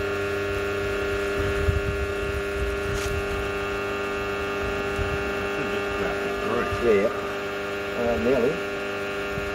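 Steady electrical hum made of many held tones.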